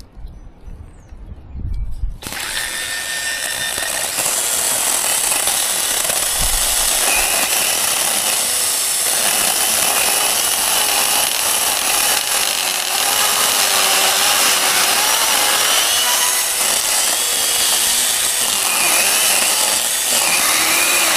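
A gas chainsaw comes in suddenly about two seconds in and runs at high speed. Its pitch wavers up and down as it works through brush and branches.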